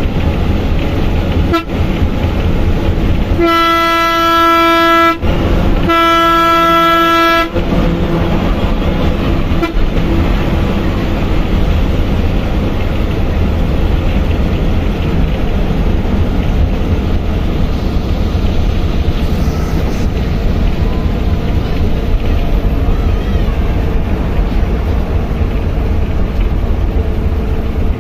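Steady engine and road noise inside a moving bus. A few seconds in, a horn sounds two long blasts of about a second and a half each, with a short gap between them.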